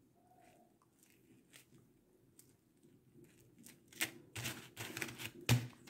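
Hands handling strung tubular coral beads and fishing line: faint scattered clicks and rustling that grow busier and louder about four seconds in, with one sharp click near the end.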